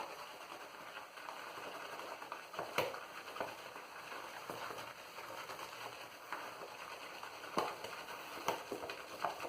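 Synthetic shaving brush working a pasty load of shaving soap around an empty bowl, with no water added yet: a steady soft scratchy swishing with a few light clicks of the brush against the bowl.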